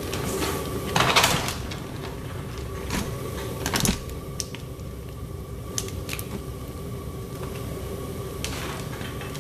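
Propane burner of a homemade metal-melting furnace running steadily, with scattered clicks and knocks over it; the loudest are a brief rattle about a second in and another just before four seconds.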